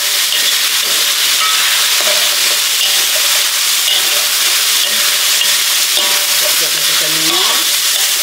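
Chili paste frying in hot oil in a steel wok with a steady sizzle, a metal spatula stirring and scraping through it. The oil has separated from the paste, the sign that the paste is cooked through.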